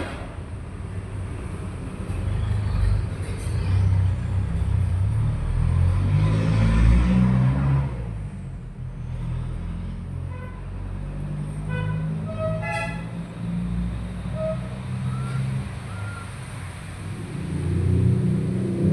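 A low, steady engine rumble, like a motor vehicle running, with a few short high chirps about ten to thirteen seconds in.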